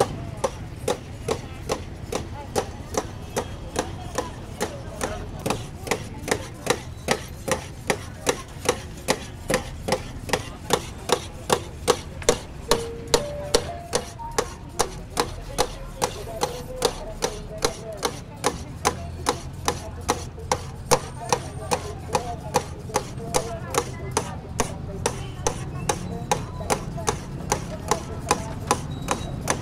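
Knife chopping roasted meat from a vertical spit on a round stainless-steel tray: steady, even strikes about three a second, over a low background rumble.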